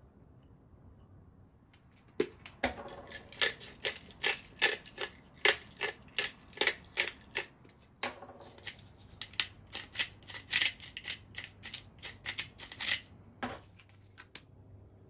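Salt and pepper being sprinkled from a container in a run of quick, dry rattling strokes, about two to three a second, with a short break near the middle.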